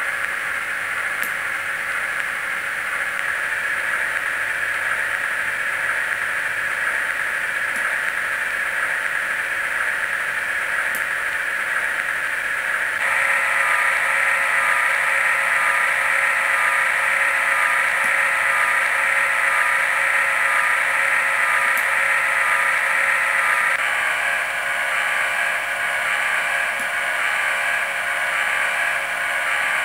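Sound-effect playback from a DZN144 DCC sound decoder through the small stock speaker of a KATO N-scale 115 series electric train, using a Digitrax Peter Witt streetcar sound file, while the model stands still: a steady hiss-like hum. About halfway through it gets louder and takes on a steady humming tone, and it shifts again a little later.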